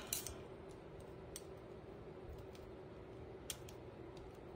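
A few faint, sharp clicks of metal as a strip of staples is fitted into a REXBETI heavy-duty staple gun's pulled-out magazine, two of them close together about three and a half seconds in, over a low steady hum.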